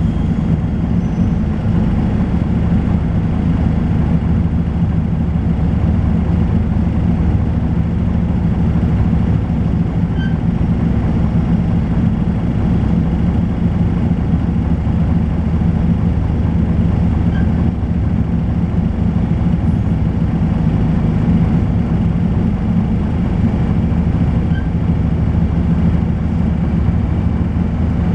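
Volvo B10BLE bus's six-cylinder diesel engine running at a steady speed: an even, low drone that neither rises nor falls.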